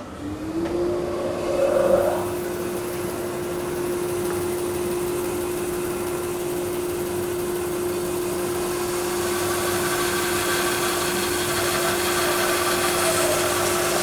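A dust collector switched on with a click, its motor spinning up within the first second to a steady hum. From about two-thirds of the way in, a 3 hp Rikon bandsaw resawing a mahogany board adds its cutting noise.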